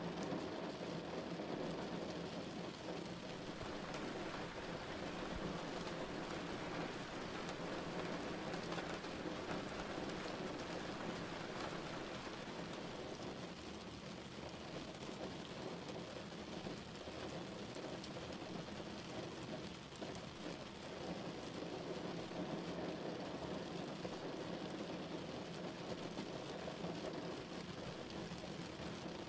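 Steady rain falling, an even wash of rain on surfaces with no break.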